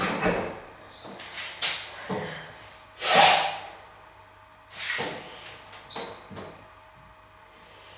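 Washing machine being handled and set going: a string of knocks and clatters from its lid, detergent drawer and controls, with a louder scraping rush about three seconds in. Short electronic beeps about one and six seconds in, as the machine's buttons are pressed.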